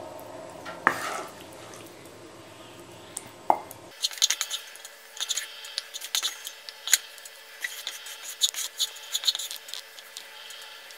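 Wooden spatula scraping and knocking against a pan and the rim of a ceramic jar as thick cooked lemon pickle is scooped into the jar. There are a couple of single knocks in the first few seconds, then a busy run of quick scrapes and clicks.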